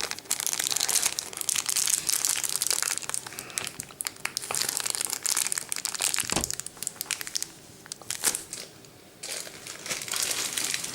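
Packaging being crinkled and rustled by hand while an advent calendar door's contents are taken out. There is a single soft knock about six and a half seconds in, and the rustling eases off for a moment before picking up again near the end.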